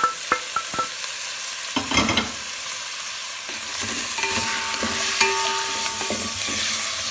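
Chicken pieces and vegetables sizzling as they fry in butter in a pot, with a steady frying hiss and a spoon stirring. There are a few sharp utensil clicks near the start and a louder clatter about two seconds in.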